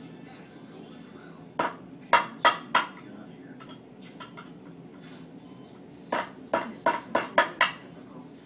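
A high-heeled shoe used as a hammer, knocking a key into the lid of a metal food can: sharp metallic clinks, four blows, a pause, then a faster run of six.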